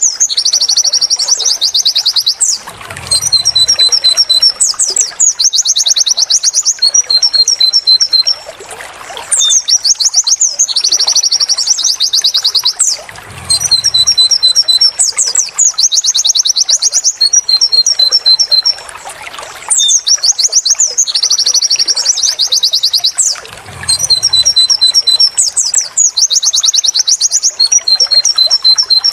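White-eye (pleci) song: fast high trills alternating with runs of short repeated 'wit wit tulit' notes, the same phrase sequence repeating about every ten seconds as a looped training recording.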